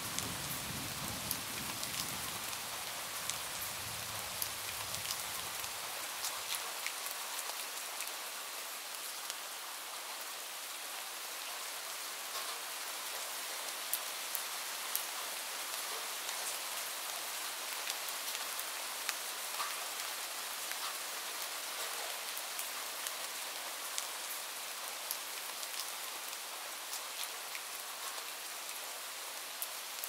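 Steady rain falling, with many sharp individual drops ticking close by. A low rumble underneath dies away about six seconds in.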